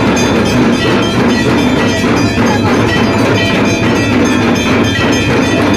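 Music with a fast, steady percussive beat.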